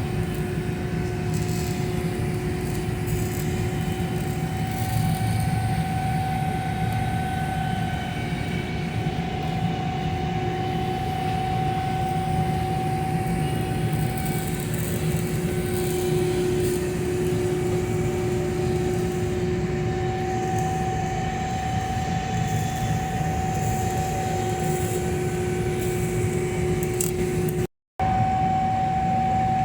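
Steady hum and hiss of welding on a copper-nickel pipe socket joint, with two steady tones from the welding equipment over a low rumble; the sound cuts out briefly near the end.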